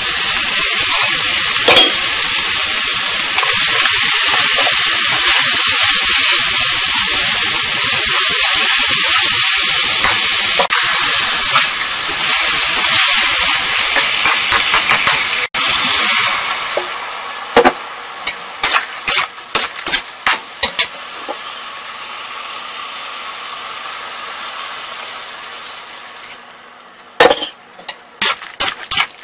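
Shiitake, oyster and wood ear mushrooms sizzling hard in hot oil in a wok. About halfway through, the sizzle drops to a quieter hiss and a run of sharp clacks follows, a spatula striking the wok as the mushrooms are stirred, with a few louder knocks near the end.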